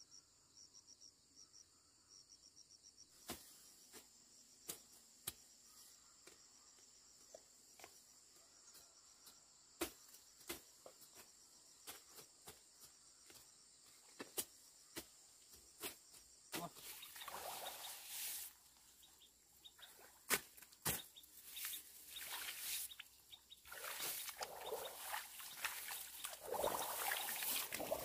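Steady high drone of insects over the rice paddies, with scattered sharp clicks through the first half. From past the middle, louder swishing and rustling of rice plants being brushed through, growing stronger near the end.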